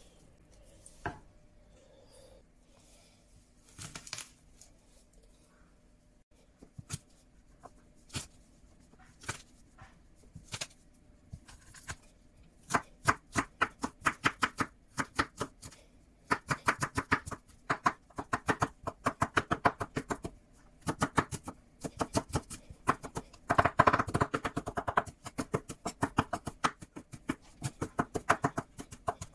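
A few scattered knocks, then, from a little before halfway, a kitchen knife chopping and mincing garlic cloves on a bamboo cutting board in quick runs of sharp strokes with short pauses between them.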